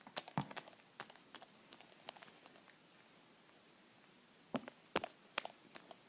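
Light clicks and taps of small plastic toy figures being handled and set down on a surface, scattered through the first couple of seconds and again near the end.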